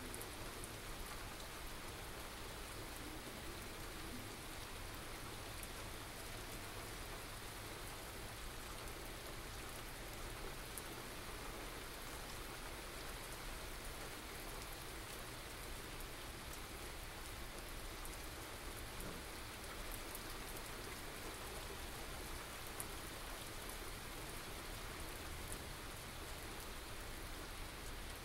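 Steady rain falling in a small thunderstorm, an even hiss with scattered drops ticking, picked up by binaural microphones.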